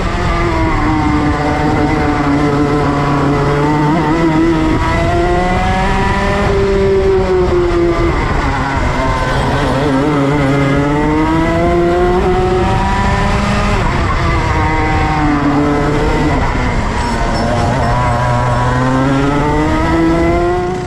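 Go-kart engine heard from onboard while lapping a kart track, its revs climbing on the straights and dropping back for corners several times over.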